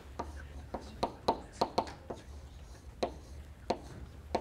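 Chalk tapping on a blackboard during handwriting: about a dozen irregular sharp taps over a low steady hum.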